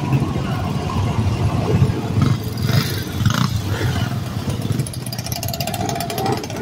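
Several motorcycle engines running at idle and low speed close by as the bikes roll past, a steady low engine sound with no pauses.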